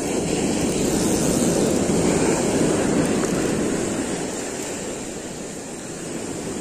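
Ocean surf: a wave breaking and washing up the beach in a steady rush that swells over the first three seconds or so, then eases off.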